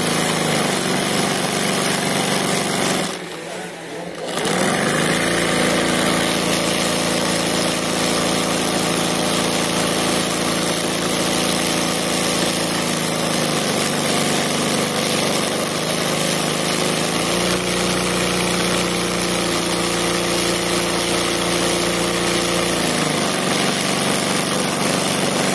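Embroidery machine stitching at speed, a steady mechanical hum. It drops away briefly about three seconds in, then runs on, its pitch stepping up for a stretch in the second half and back down near the end.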